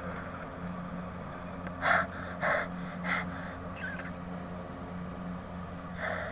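A person with a head cold blowing a blocked nose into a tissue in short forceful puffs: three or four between about two and four seconds in, and one more near the end.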